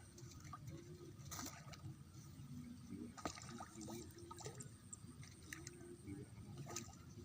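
Faint water dripping and trickling, with scattered small clicks and brief low pitched sounds.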